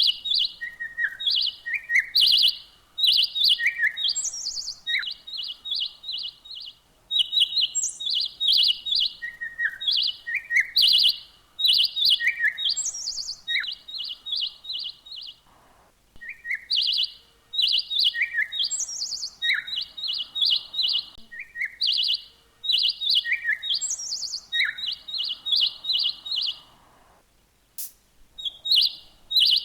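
Bird chirping: quick high chirps and short down-slurred notes in phrases that repeat, broken by brief pauses.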